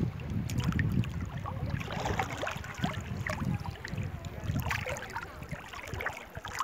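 Shallow seawater sloshing and lapping right at the microphone, with irregular small splashes, over a low rumble of wind buffeting the microphone.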